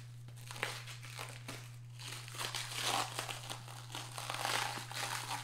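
Clear plastic wrapping crinkling and crackling as it is pulled and torn off a book by hand. It comes in irregular handfuls, louder about halfway through and again near the end.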